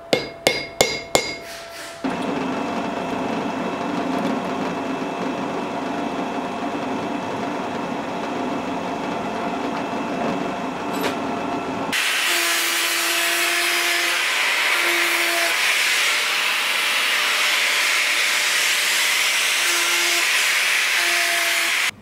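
A few sharp, ringing taps of a hammer on a punch held against a steel pommel on an anvil, then a power tool running steadily for about ten seconds. Near the middle it switches to a louder, high hissing of an abrasive grinder cutting steel, with short tones coming and going.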